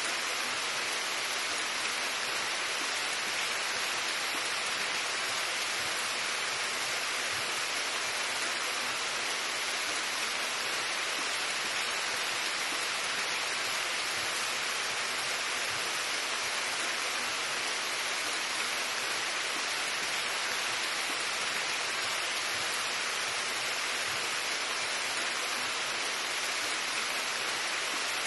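Steady rain falling on forest leaves, an even hiss without breaks or pauses.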